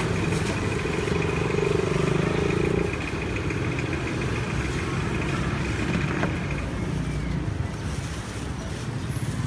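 Steady engine hum of street traffic, motor vehicles running close by, with a thin high whine that cuts off about six seconds in.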